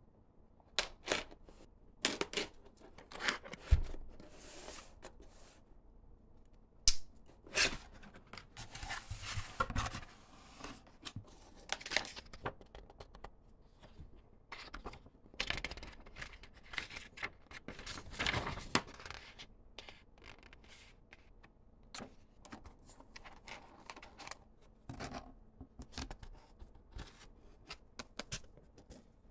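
Unboxing handling noise: a pocket knife slitting the tape on a cardboard box, with cardboard and paper tearing, rustling and scraping in irregular bursts and a couple of dull thumps early on. Later there are sparser light clicks and rustles as the packing is handled.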